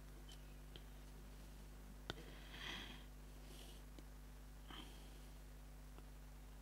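Near silence: a low steady hum with a few faint clicks and soft rustles.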